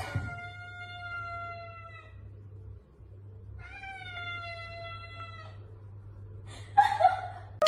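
Tabby cat answering with two long, drawn-out meows, each held about two seconds and sliding slightly down in pitch, with a pause between them; a short burst of noise follows near the end.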